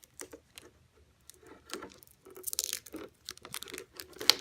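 Thin protective plastic film being peeled off a painted polycarbonate RC car body, crackling and crinkling in irregular bursts, with the sharpest crackle near the end.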